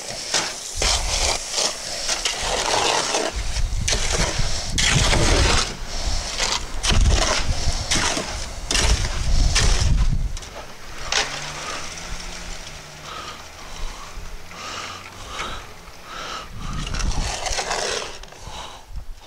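Shovel scraping and crunching through wet concrete mix in a wheelbarrow, stroke after stroke, as the concrete is mixed; after about ten seconds the strokes become quieter and more spaced out.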